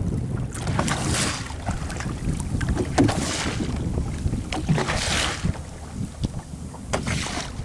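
Wind buffeting the microphone over open sea, with waves splashing against the side of a small fishing boat, the splashes swelling about every two seconds.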